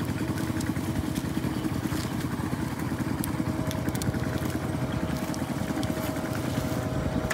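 Small farm engines running steadily: a low, rapid chugging throughout, with a thin steady whine joining about three seconds in.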